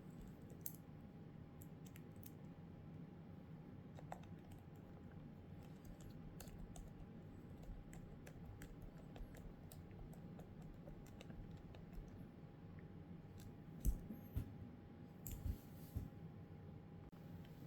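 Light, irregular clicks and taps over a faint steady hum, with a few louder knocks near the end.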